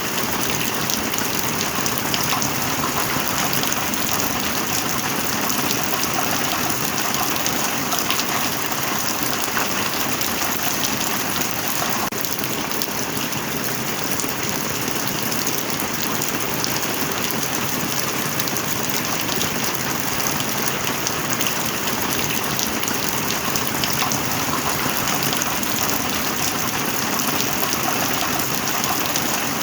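Steady heavy rain: a dense, unbroken hiss of falling drops.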